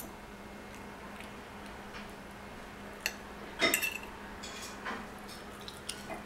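Fork clicking and scraping against a dinner plate during eating, a few scattered taps with the loudest scrape about three and a half seconds in. A faint steady hum runs underneath.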